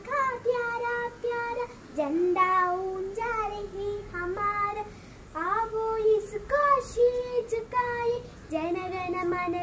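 A young girl singing solo and unaccompanied, in phrases of held notes with short breaks between them.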